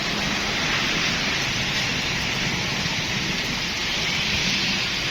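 Heavy rain falling steadily: a dense, even hiss with no separate drops or breaks.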